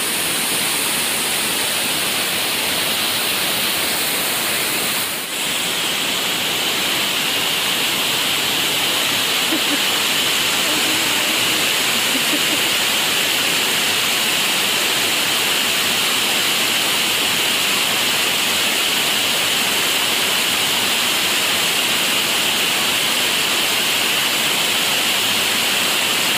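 Steady rushing noise of a waterfall's falling water, with a brief dip about five seconds in.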